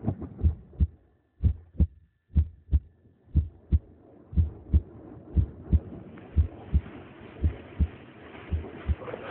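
Low, drum-like thumps in a steady double beat, two strokes close together repeating about once a second. A steady hiss joins in about six seconds in.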